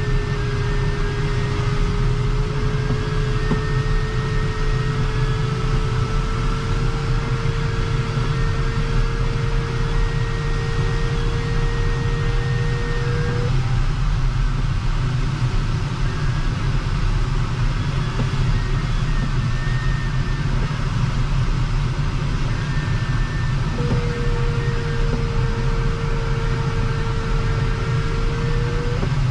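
Steady rushing airflow noise in an LS-4 glider's cockpit. Over it, the variometer's audio tone holds one pitch that creeps slightly higher, the climb signal in a thermal. The tone stops about halfway through and returns a few seconds before the end.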